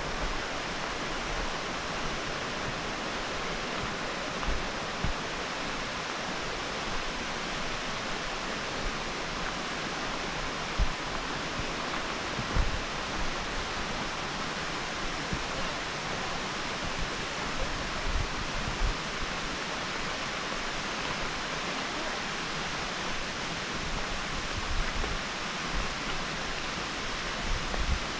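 Steady rush of water from the waterfall and the creek below it, with occasional low thumps.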